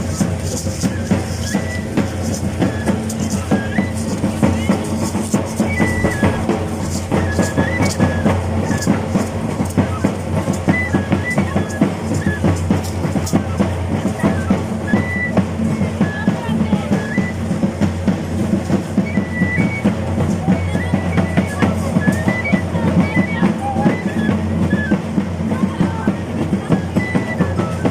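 Drum and carrizo (cane flute) music played live. A steady, rapid drum beat runs throughout, with short, high, repeated flute phrases over it.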